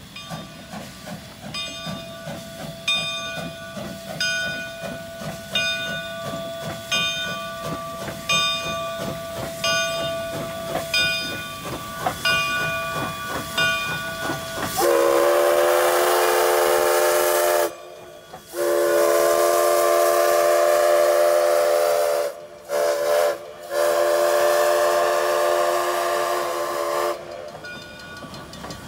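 Steam locomotive McCloud River Railroad No. 25 pulling out, its bell ringing about once every second and a half over hissing, chuffing steam. About halfway in, its chime steam whistle blows the loudest part: long, long, short, long, the signal for a level crossing. The bell rings on after the whistle stops.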